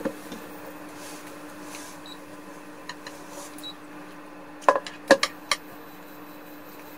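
Kitchen utensils clinking and knocking against cookware: a single click at the start and another near the three-second mark, then a quick cluster of four or five sharp knocks about five seconds in, over a steady low hum.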